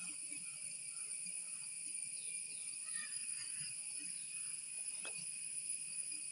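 Handful of peanuts frying in coconut oil in a kadai, with faint scattered crackles and pops and a sharp tick about five seconds in, over a steady high-pitched hiss. The cracking of the peanuts is the sign that they are fully roasted.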